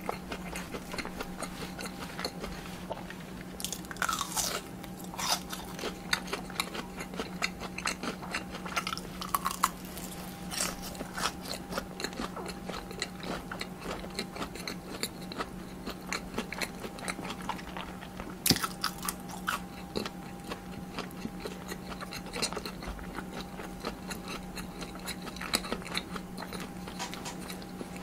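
Close-miked eating: a person biting and chewing a meal of tteokbokki rice cakes and fried cheese sticks, with crunching and many small wet clicks, over a steady low hum.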